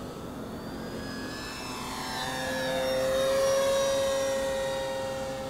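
Electric motor and propeller of a 55-inch Super Decathlon RC model plane making a flyby. The steady whine grows louder, peaks a little past the middle, then eases off with a slight drop in pitch as the plane passes.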